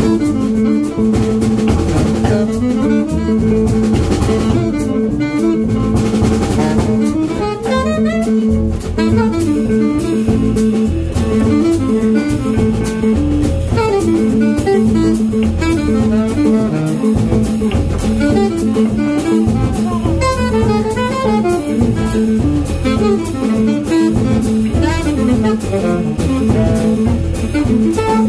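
Live jazz group playing: drum kit played with sticks, upright bass and saxophone, with melodic lines moving over a steady held note.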